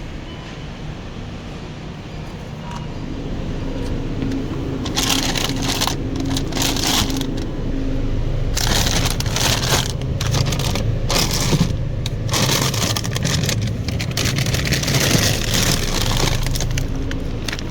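Shopping cart being pushed across a store floor, its wheels and wire basket rumbling and rattling, with stretches of louder scraping rattle from about five seconds in.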